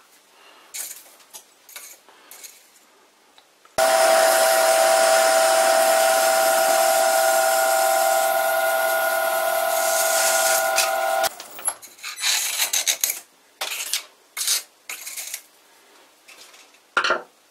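Metal lathe turning tool cutting a taper in a metal bar, with a loud, steady, high-pitched chatter squeal that sets in suddenly about four seconds in and stops abruptly some seven seconds later. Faint scattered scrapes and clicks come before and after it.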